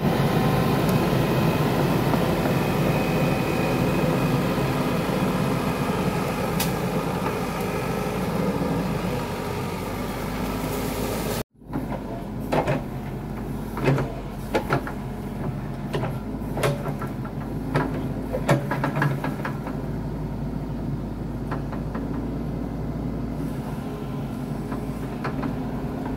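Hitachi Zaxis mini excavator's diesel engine running steadily as it digs earth. About halfway through it drops in level, and a series of sharp clanks and knocks from the bucket and arm working the soil come through over the engine.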